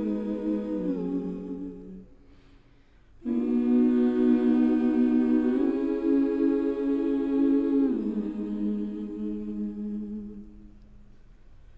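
A cappella choral singing as background music: several voices hum and sing long, held chords that step down to new notes. One phrase fades out about two seconds in, and a new one enters a second later and fades away near the end.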